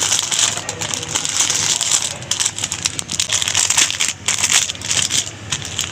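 Clear plastic packaging bag crinkling and crackling as hands tear it open and pull it off a folded cloth garment, in a dense, irregular run of crackles.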